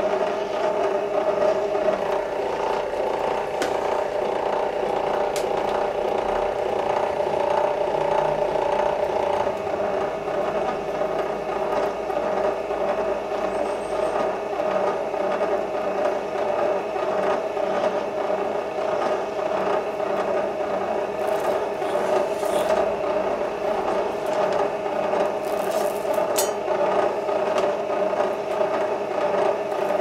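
VEVOR electric wire stripping machine running steadily, its motor and geared feed rollers making a constant whirring hum as a yellow-green earth wire is drawn through and its insulation slit.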